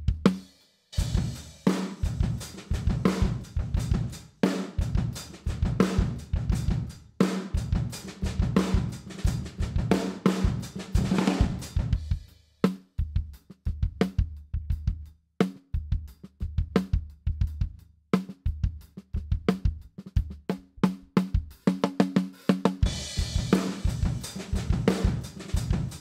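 Playback of a studio drum-kit recording, heard through the kick-drum and snare-top close mics, with a hyper-compressed SM57 'trash' room mic blended in to add grit and explosiveness. The hits come in dense runs broken by a few short pauses, and the sound turns brighter and denser near the end.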